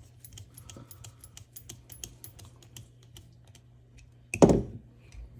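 Quick, irregular run of light metallic clicks from the parts of a Leatherman Surge multi-tool being handled, then one loud thud about four and a half seconds in.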